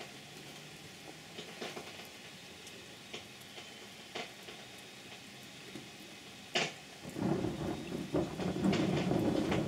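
Steady rain hiss with scattered sharp ticks of drops hitting close by. About seven seconds in, a low rumble of thunder sets in and builds.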